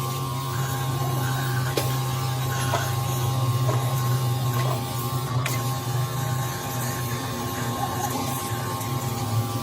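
A workshop machine running steadily: a constant motor hum with a steady whine above it and a few light ticks.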